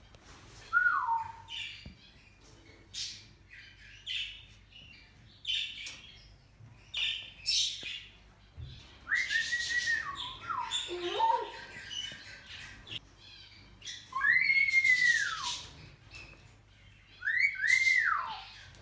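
Moluccan cockatoo calling in a series of short separate notes: whistle-like notes that rise and fall in pitch, mixed with short harsh squawks. The loudest arched call comes about fifteen seconds in, and another follows near the end.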